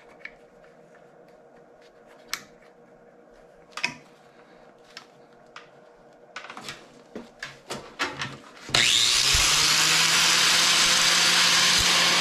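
Light metallic clicks and knocks as a tool-grinding fixture is adjusted. About three-quarters of the way through, an angle grinder switches on: a rising whine as it spins up, then a loud steady run as it grinds a high-speed steel lathe tool bit.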